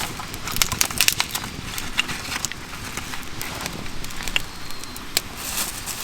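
Wood fire crackling, with irregular sharp pops and snaps, a cluster of them about a second in.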